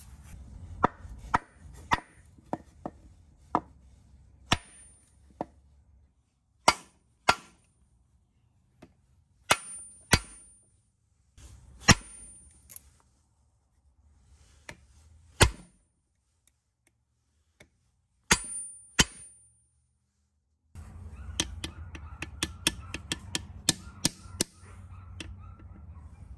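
Sharp metal taps and clinks of steel tools against a John Deere engine's cast-iron block, crankshaft and main bearing cap, coming at irregular intervals, several with a brief high ring, as the cap is worked into line. Near the end comes a quicker run of lighter clicks.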